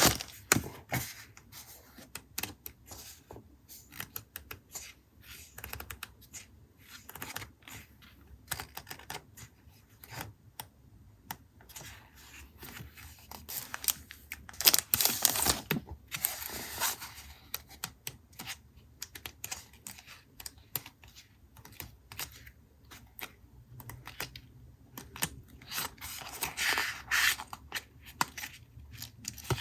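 Paper-craft handling sounds for a journal collage: many small taps and clicks of paper and materials being handled, with louder bursts of paper rustling about halfway through and again near the end.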